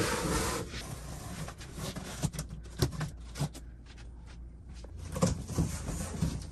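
A cardboard shipping box being opened: a scatter of short sharp scrapes and taps as the taped top is worked open, then the cardboard flaps rubbing as they are pulled back.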